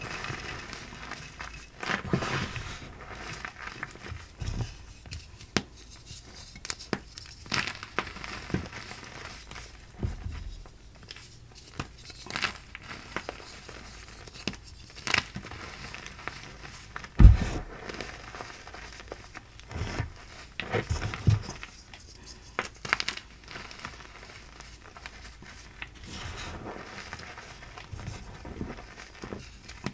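Hands squeezing handfuls of gym chalk powder and crumbling chalk blocks: irregular soft crunches and crackles, with one louder thud a little past halfway.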